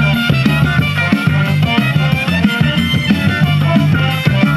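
Music playing back from a Hitachi demonstration cassette on the Fisher PH-480 boombox's cassette deck after its drive belts were replaced.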